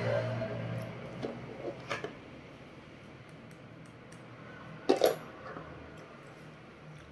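Tabletop handling sounds during a meal: a few light clicks, then a sharp double knock about five seconds in as a hard object is set down on the table.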